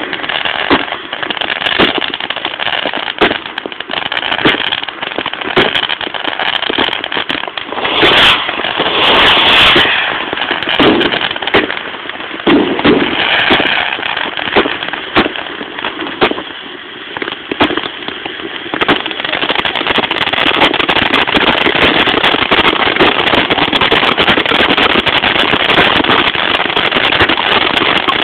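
Fireworks going off close by: a continuous crackle studded with many sharp pops. There is a louder burst about eight seconds in, and a denser, steadier crackle over the last third.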